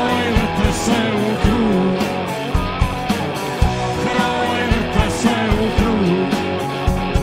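Live rock band music: drums keeping a steady beat under electric guitars and bass, with a man singing.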